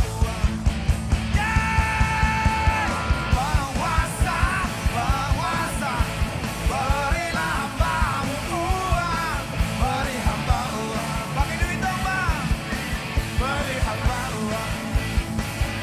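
Live rock band playing at full volume: a driving drum beat and electric guitar, with a note held for over a second near the start, then male voices singing over the band.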